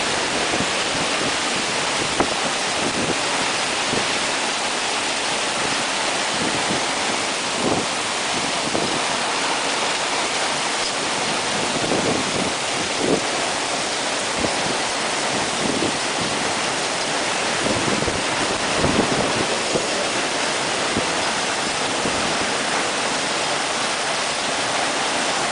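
Heavy typhoon rain pouring steadily in strong wind, with gusts buffeting the microphone every few seconds.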